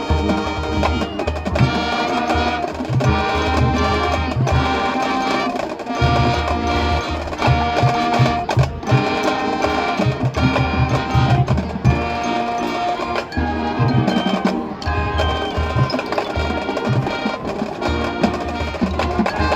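High school marching band playing: brass chords over a steady beat from the drumline and bass drums.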